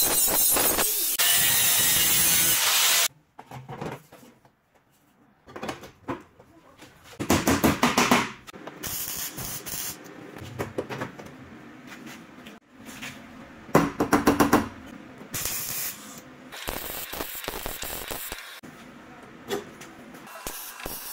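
Angle grinder cutting sheet steel, a loud steady screech that stops suddenly about three seconds in. It is followed by stretches of stick-welding crackle and other workshop noises as new steel is welded onto a car's rusted rocker panel.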